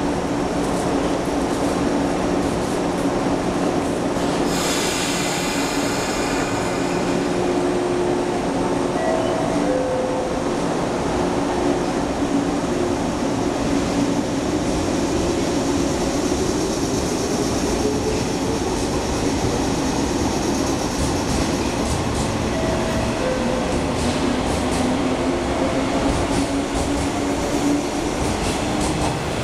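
JR West 113 series electric train standing with a steady hum, a hiss of air about five seconds in, then pulling away with its traction motors whining up in pitch and its wheels running on the rails. Later a second train's motor tone falls in pitch.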